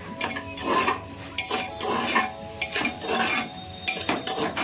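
A metal spoon stirring and scraping vegetables frying in an aluminium pressure cooker, with about two to three strokes a second and a light sizzle underneath.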